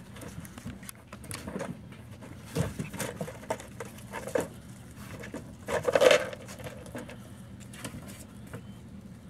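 Puppies' paws pattering and scuffing on gravelly dirt, with scattered small clicks and a louder scuffling noise about six seconds in.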